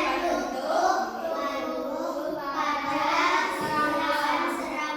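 Children's voices singing together in a classroom, a steady sung line with no break.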